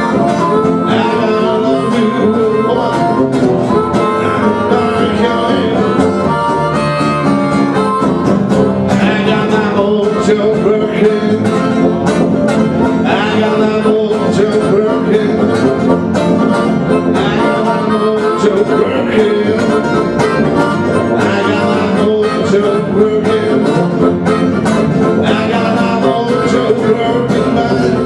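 Live blues played on harmonica and strummed acoustic guitar, with a steady driving rhythm.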